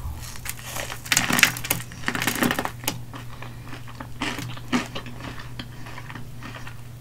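Close-miked crunching as teeth bite into corn on the cob coated in mayo and crushed hot Cheetos: a dense crackle of the crunchy Cheeto crust and kernels, loudest a second or two in, then scattered crunches of chewing.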